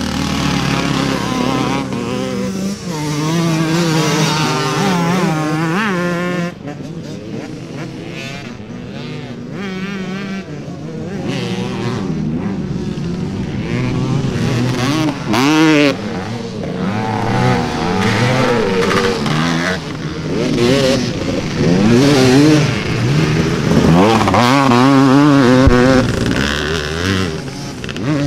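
Several motocross bikes racing, their engines revving up and down as the riders accelerate along the track, with the loudest revs about halfway through and again near the end.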